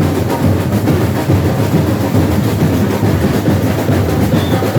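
Carnival samba bateria drumming: dense, fast percussion with heavy bass drums, loud.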